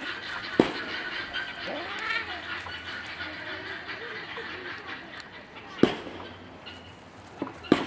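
Faint birds chirping, with a short rising-and-falling call about two seconds in and several sharp knocks, two of them close together near the end.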